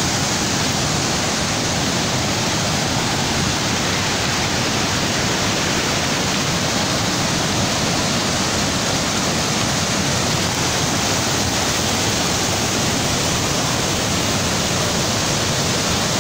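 Brown floodwater rushing through a swollen mountain river: a loud, steady, unbroken rush of turbulent water.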